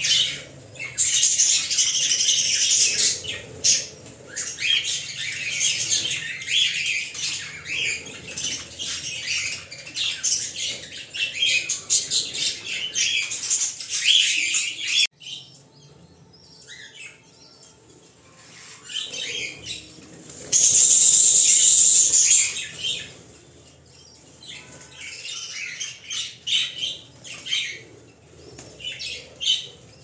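Nestling parrot chicks chirping and begging: a dense, high-pitched chatter through the first half. After a sudden drop about halfway, there are scattered quieter chirps and a loud burst of noise lasting about two seconds, two-thirds of the way in.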